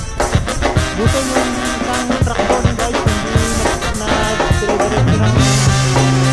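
Upbeat background music with a steady drum beat and a bass line.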